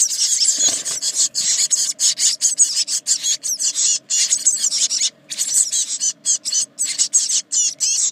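A brood of 18-day-old blue tit nestlings begging in the nest box: a dense, hissing chatter of rapid high calls, breaking off briefly a few times in the second half.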